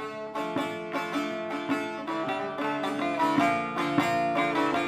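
A plucked string instrument playing a melodic instrumental introduction, with picked notes over steady ringing drone tones, before the singing begins.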